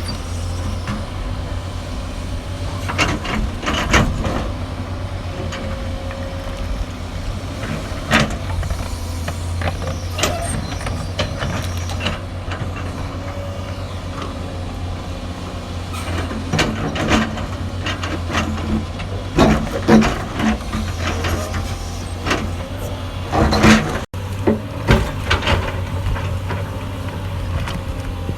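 Hydraulic excavator's diesel engine running steadily, with scattered knocks and clanks as it works.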